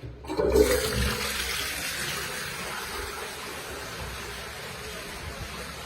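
A public toilet flushing: a sudden rush of water that is loudest about half a second in, then eases to a steady hiss of running water.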